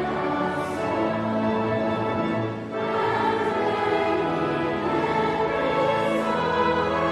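Choral music with orchestral accompaniment: sustained sung chords over strings, with a brief softening about two and a half seconds in.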